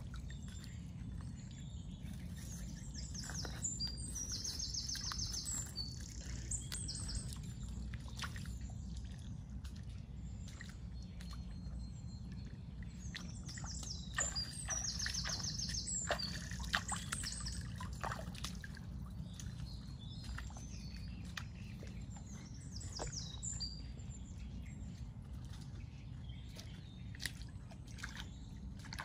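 A bird singing a short phrase of high notes with a quick trill, three times about eight to ten seconds apart, over a steady low rumble and scattered faint clicks.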